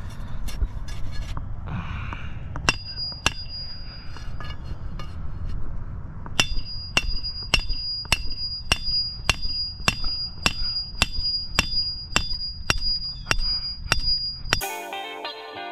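Hammer blows ringing on metal: a few single strikes, then a steady run of about one and a half blows a second, over a low rumble. Near the end the sound cuts to guitar music.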